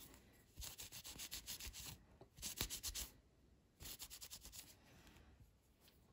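A cloth rubbed quickly back and forth against the handle and liner of a Bestechman Mini Dundee folding knife, wiping out sand. It comes in three bursts of rapid strokes, the middle one loudest.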